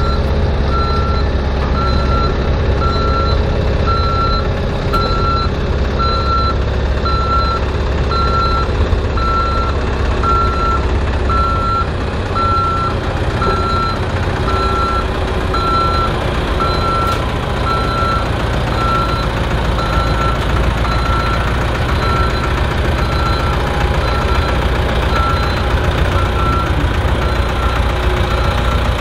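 Vehicle reversing alarm beeping evenly, roughly one and a half beeps a second, growing fainter near the end, over the steady low running of a heavy engine, likely the tractor towing the tram.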